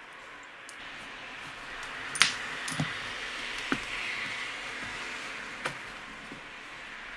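Chrome snare-drum lugs clinking as they are handled and wiped dry with a towel: a handful of sharp metal clinks, the loudest about two seconds in, over the steady rub of the cloth.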